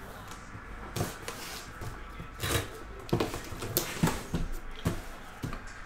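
Cardboard box being handled and set about on a tabletop: irregular light knocks and scuffs, about eight over the few seconds.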